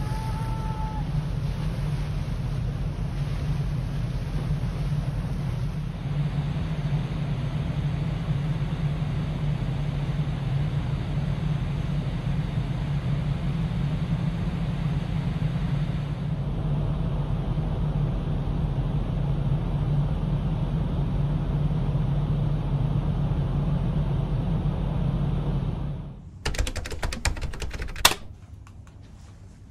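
Steady low drone of the ferry Sunflower Murasaki's engines and machinery heard from an open deck with wind on the microphone while the ship lies at the quay. About 26 seconds in the drone stops abruptly, and a few sharp clicks and knocks follow, the loudest a second or so later.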